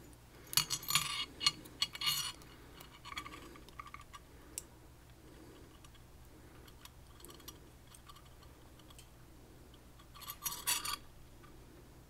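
Small metal clicks, clinks and scrapes from a pin-tumbler lock cylinder and thin metal tools being worked by hand, as the cylinder is shimmed and taken apart. A cluster of clicks comes at the start, a few faint ticks follow, and another short burst comes near the end.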